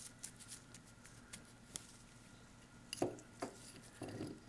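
Metal end cap of a Roosa Master diesel injection pump being worked loose by a gloved hand and pulled off the pump body: small clicks and rustling, then two sharp metal knocks about three seconds in and a short scrape as the cap comes free.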